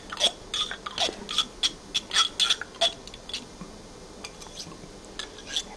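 Table knife clinking and scraping inside the neck of a ketchup bottle, digging out thick ketchup that won't pour: a quick run of sharp clicks, about three or four a second, thinning out about three and a half seconds in.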